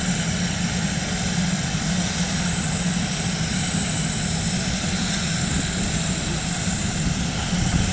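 Helicopter running steadily, with a constant low drone and a thin high whine.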